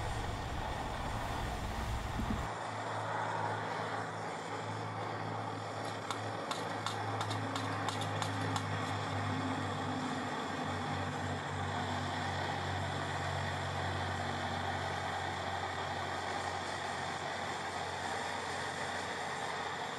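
Burner of a 1946 Coleman 530 pressurized liquid-fuel stove running with a steady hiss, fully warmed up and burning a blue flame. A few faint ticks midway.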